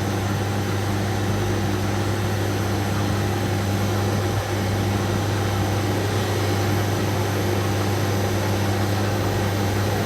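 Large concrete floor grinding machine running steadily, its electric motor giving a constant low hum over the grinding noise, with a brief dip about four and a half seconds in.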